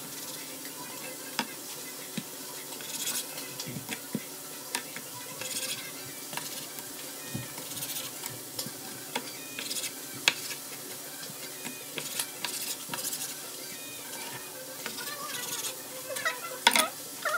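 Knife cutting raw chicken breast on a plastic cutting board, the blade tapping the board in scattered sharp clicks, over a steady sizzle of ham frying in a pan.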